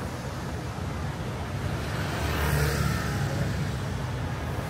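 Road traffic, with a motor vehicle passing that grows louder about two to three seconds in.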